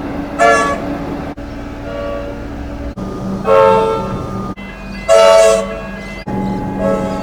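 Comeng train's horn sounding three short blasts, each a chord of several tones, over a steady low hum, with abrupt cuts between separate recordings.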